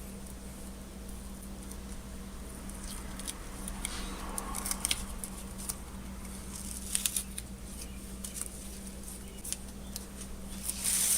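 Masking tape being picked and peeled off a painted cast-iron vise: scattered light clicks and short crackling rips, over a steady electrical hum.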